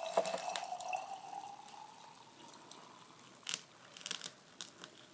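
Tap water poured from a pitcher into a glass canning jar of dry beans, the filling note rising in pitch as the jar fills. The pour tails off about two seconds in, followed by a few faint drips and clicks.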